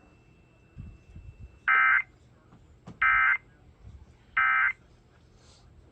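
Emergency Alert System End of Message tones: three short, identical bursts of shrill digital data screech about a second apart, the coded signal that closes the alert.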